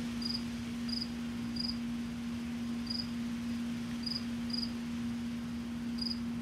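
A cricket chirping in short, high single chirps, spaced unevenly about half a second to a second apart, over a steady low hum.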